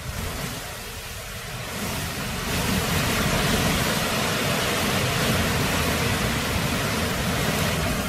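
Strong, gusty near-storm wind rushing through the trees and buffeting the microphone with a low rumble. It swells into a stronger gust about two seconds in and holds.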